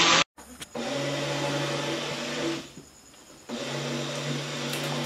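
Electric spice grinder grinding roasted corn grits into powder, its motor running in pulses with a steady hum. It cuts out briefly a fraction of a second in, stops for about a second near the middle, then runs again.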